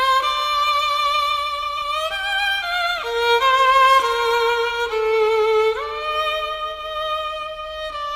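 A slow, sad violin melody with vibrato, moving in two voices from note to note, then settling on one long held note about six seconds in.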